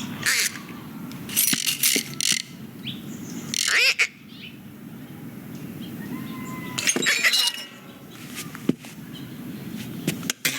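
Cartoon Foley sound effects: scattered sharp clicks, clinks and knocks over a low rumble, with a short squeaky glide about four seconds in and another burst of clatter about seven seconds in.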